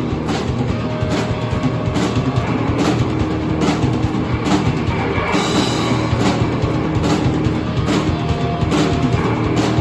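Live rock band playing, drum kit prominent, with a sharp hit cutting through about once a second over the dense wash of the band.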